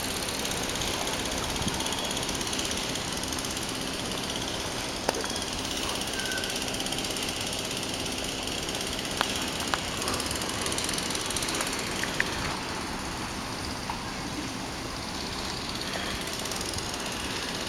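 Steady outdoor background noise: a low mechanical hum under a hiss, with a few faint clicks.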